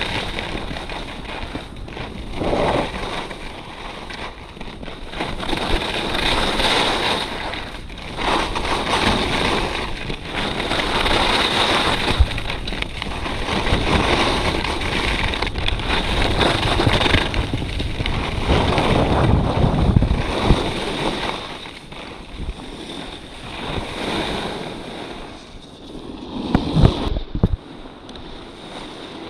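Wind buffeting the microphone of a skier's action camera at speed, with skis scraping and hissing over hard-packed snow in swells that rise and fall every couple of seconds through the turns. It quietens as the skier slows near the end.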